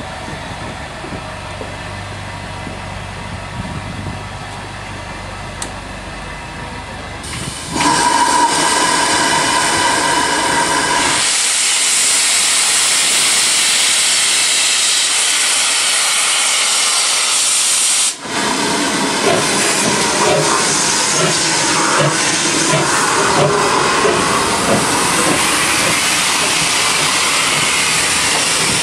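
GWR 1400 class 0-4-2T steam tank engine: after a quieter stretch of steady low hum, its whistle sounds for about three seconds. Then comes a loud hiss of steam, and it starts away, its exhaust beats coming through the hissing of steam from its open cylinder drain cocks.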